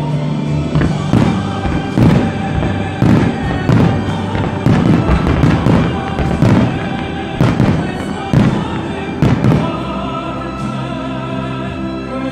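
Aerial firework shells launching and bursting in a rapid series of sharp bangs, about two a second, thinning out after about nine seconds. Loud music plays throughout under the bangs.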